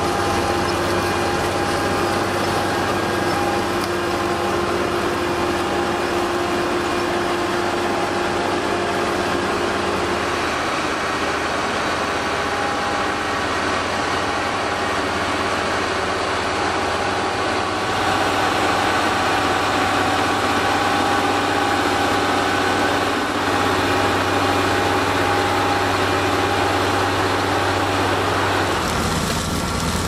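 Dewulf Potato4CE self-propelled potato harvester at work: its diesel engine running steadily under load together with the even clatter and hiss of its conveyors and cleaning section. The engine's tone shifts slightly a few times.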